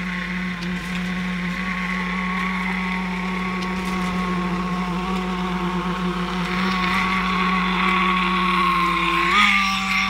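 Concrete-pouring machinery running steadily: a constant motor hum and whine with a hiss over it, rising briefly in pitch about nine seconds in.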